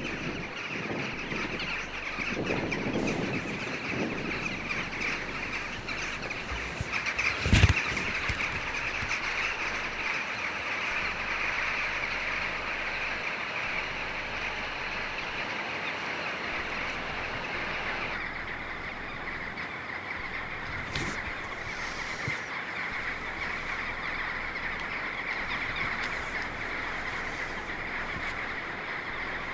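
Dense, continuous chatter of a jackdaw flock calling, with one loud thump about eight seconds in.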